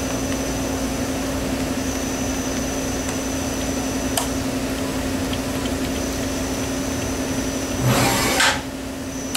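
Steady hum of a CNC milling machine in a machine shop, with one constant low tone. A faint click comes about four seconds in, and a short, loud hiss comes near the end.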